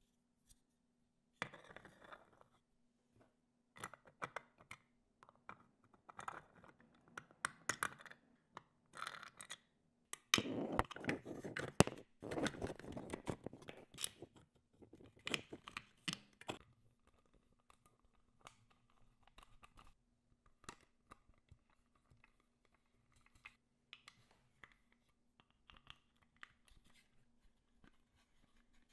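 Small hand-work sounds of assembling plastic parts and wiring: scattered clicks and scrapes, with a denser run of scraping and rustling in the middle, over a faint steady hum.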